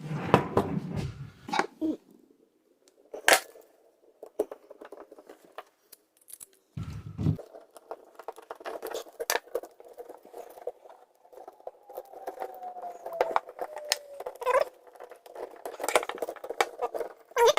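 Small clicks, taps and scrapes of wires and a GFCI outlet being handled as the wires are connected to its terminals, with one dull knock about seven seconds in.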